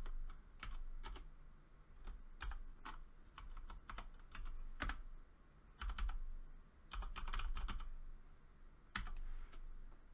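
Typing on a computer keyboard: irregular keystrokes, some in quick runs, with short pauses between them.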